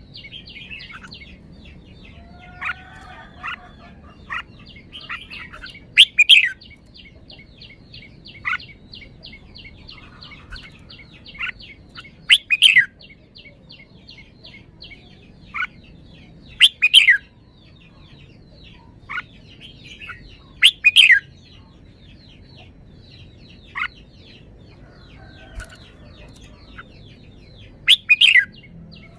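Red-whiskered bulbul singing: loud short whistled phrases about every four to five seconds, with softer single notes between them. A steady fast ticking trill runs underneath.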